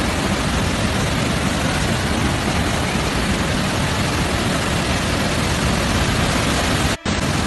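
Steady rushing noise of a fast, muddy flash-flood torrent. It breaks off for an instant about seven seconds in.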